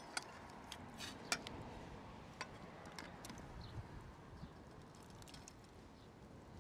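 Irregular sharp light clicks and taps, a dozen or so, the loudest at the start and about a second and a half in, over a faint steady background hiss.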